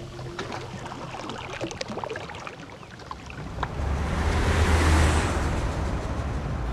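Sea water washing, with scattered small clicks at first, then a swell building about four seconds in over a low steady hum.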